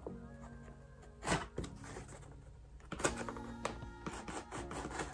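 A shipping box being handled and opened by hand: a few short scrapes and taps, the loudest about a second in, over soft background music.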